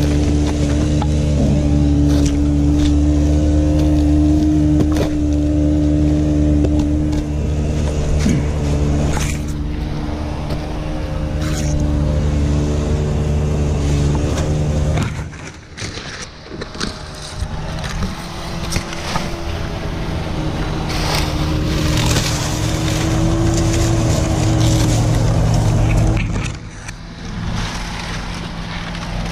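An engine runs steadily, cuts out about halfway and then starts again, while the climber's rope and gloves scrape and rustle against the rough palm trunk and its dry dead fronds with scattered clicks and crackles.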